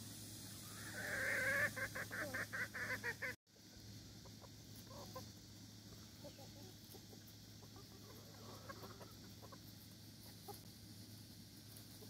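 Gamefowl chickens calling: one loud drawn-out call about a second in runs into a rapid string of clucks, then the sound cuts off abruptly. Softer, scattered clucking follows.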